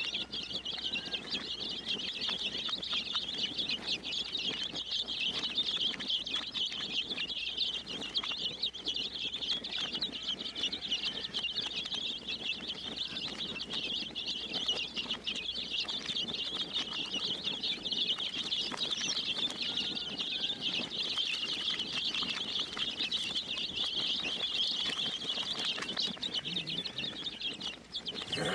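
A large flock of baby chicks peeping continuously, many high cheeps overlapping into a steady chorus.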